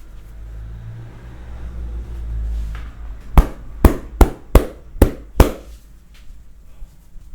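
Hands rubbing a person's body with a low rumble, then six sharp percussive massage strikes on the body, about two to three a second.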